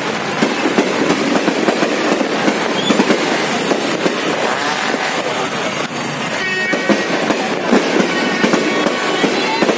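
Fireworks display: a dense, continuous crackle of many overlapping small pops and bangs. From about six and a half to eight seconds in, a horn sounds a few held notes over it.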